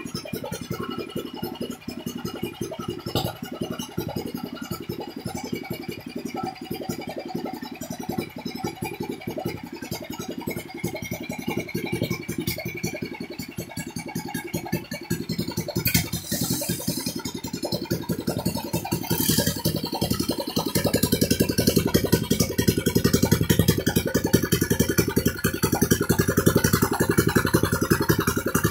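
New 18 hp, 460 cc single-cylinder gasoline engine running steadily on a test run, getting louder about two-thirds of the way through.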